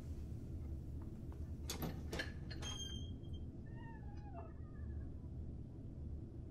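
A cat meows once, a short falling cry, after a few sharp clicks, over a low steady hum.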